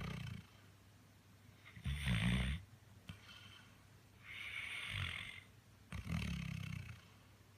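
Chocolate Labrador retriever snoring in its sleep: low, rough snores at the start, about two seconds in (the loudest) and about six seconds in, with a hissing breath between them.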